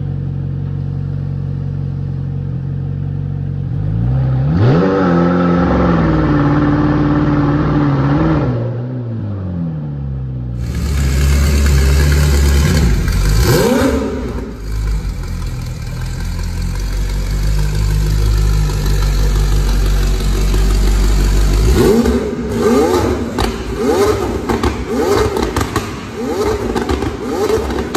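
McLaren 765LT's twin-turbo V8 idling through its quad exhaust, then revved up, held high for a few seconds and let fall back to idle. After a cut, another 765LT idles, gives one quick rev, and near the end is blipped in a fast run of short revs, about two a second.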